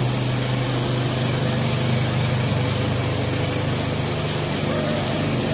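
Tielbürger TK48 walk-behind power sweeper running: its small engine hums steadily at constant speed while the rotating brush sweeps a smooth floor.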